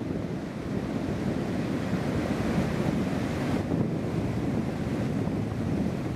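Ocean surf breaking and washing up a sandy beach, with wind rumbling on the microphone. A brighter hiss builds about two seconds in and cuts off abruptly a second and a half later.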